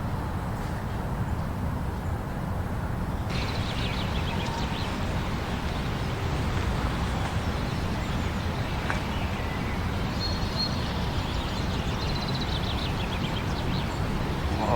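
Steady low rumble of blizzard wind. From about three seconds in, faint high chirps come and go over it.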